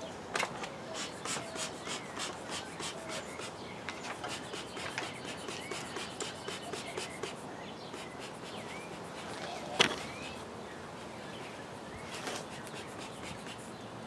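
Hand bellows of a bee smoker being squeezed, puffing and rubbing, over a run of quick faint ticks, about three or four a second, for the first half, with small bird chirps. A sharp knock comes about ten seconds in.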